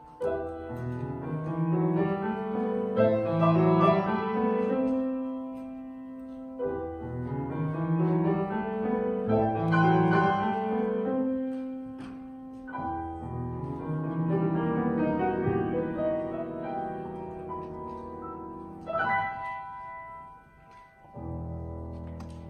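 Solo grand piano playing a classical piece: flowing phrases of rising notes over deep bass notes, each phrase opening with a strong low note and dying away, a new one about every six seconds. Near the end a low note is struck and left ringing.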